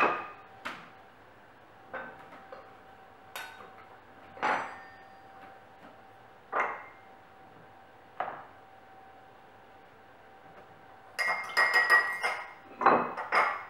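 Metal round pastry cutters and metal patty tins knocking and clinking on the worktop as pastry lids are cut and laid on the pies: single sharp knocks every second or two, then a quick run of clinks near the end.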